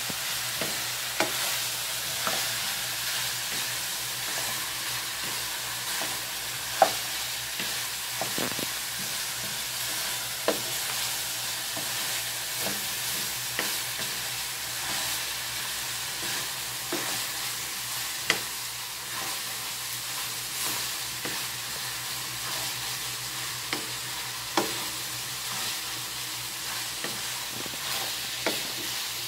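Sliced hotdogs and ground meat sizzling in a wok over a gas burner as they are stirred with a spatula. A steady frying hiss runs throughout, broken by occasional sharp clacks of the spatula against the pan.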